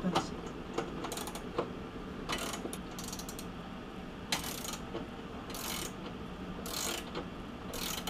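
Ratcheting wrench clicking stroke after stroke as it tightens the caliper bracket bolts on a front spindle, with a brighter burst of clicks about once a second.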